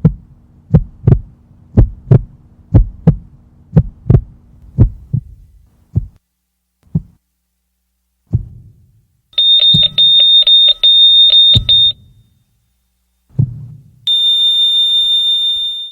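Heartbeat sound effect: low thumps in pairs that slow and thin out over the first seven seconds, then stop. A high electronic tone follows, beeping rapidly over more thumps. After one last thump, the tone turns into a steady unbroken flatline.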